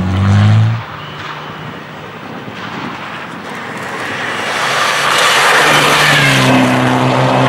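Mitsubishi Lancer Evolution X rally car at speed. Its engine note cuts off about a second in. The car then approaches and passes close, with a rush of tyre and road noise building to a peak around five to six seconds in, and a steady engine note near the end.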